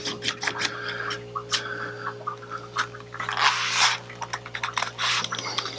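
Paintbrush scrubbing on wet paper to blend paint: a run of short scratchy strokes, with a longer, louder stroke about three and a half seconds in.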